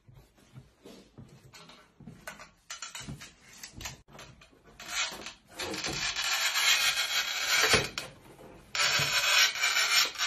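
Manual tile cutter's scoring wheel scraping along a ceramic tile in rasping strokes: a few short passes, then a long loud pass from about five seconds in that ends in a sharp knock, and another pass near the end.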